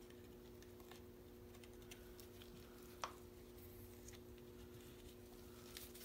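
Near silence: faint taps and rubbing as gloved hands work grout over a glass-mosaic birdhouse, with one sharper click about three seconds in, over a steady low hum.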